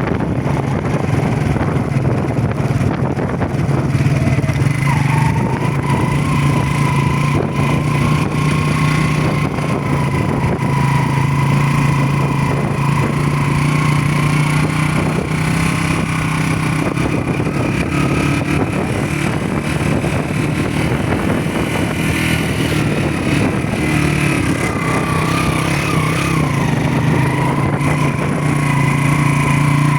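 Motorcycle engine running steadily under way, its low note holding fairly even, with a fainter high whine wavering above it from about five seconds in.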